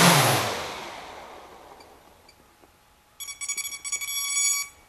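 Giant hexacopter's electric motors and propellers spinning down after landing, the whine falling in pitch and fading away over about two seconds. About a second later, a quick run of high electronic beeps lasting a second and a half.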